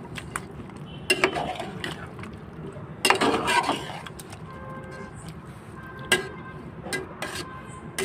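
Spatula stirring thick chicken curry in a metal pot, scraping and slopping through the gravy in two stretches, then a few short sharp knocks of the spatula against the pot in the last few seconds.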